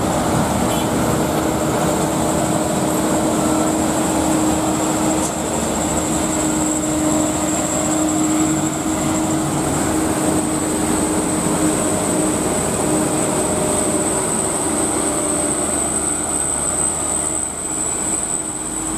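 Loaded light diesel trucks pulling uphill past the roadside in a steady engine drone, with a steady high-pitched tone running above it.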